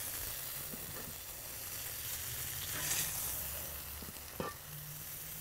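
Beef patties topped with mozzarella sizzling on a hot griddle plate set on a kettle grill, a steady hiss. A few short clicks and scrapes of a metal spatula on the griddle as the patties are lifted off.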